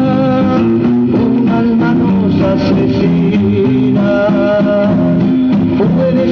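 Music played from a vinyl record: strummed and plucked guitars carrying the song's melody.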